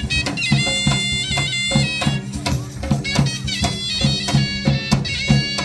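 Traditional Indian music for dance: a wind instrument plays a melody of held, stepping notes over a steady drone, with regular drum strokes.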